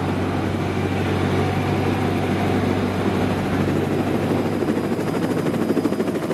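Steady engine and wind noise from the race's camera motorbike and camera helicopter, with a fast even pulsing in the last couple of seconds.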